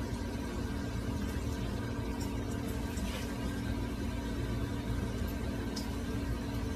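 A steady low mechanical hum with a few faint ticks.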